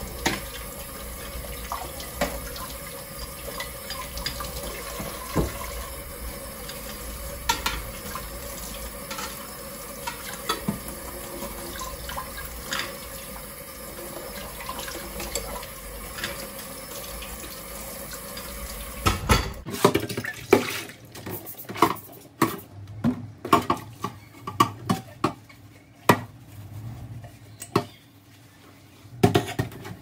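Kitchen tap running into the sink while dishes are washed, with occasional clinks of crockery. About twenty seconds in, the running water stops abruptly and a quick series of clinks and knocks of dishes being handled follows.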